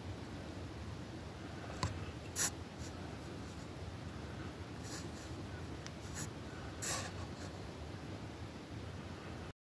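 Faint steady indoor hiss with five brief scratchy taps and rubs, the loudest about two and a half seconds in, from a phone being handled while filming through a window. The sound cuts off just before the end.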